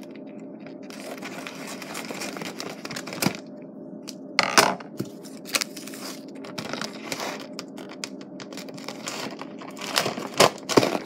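Scissors cutting the top off a plastic bag of frozen chicken, the plastic crinkling and rustling with a few sharper snips, the loudest about four and a half seconds in and near the end. A steady low hum runs underneath.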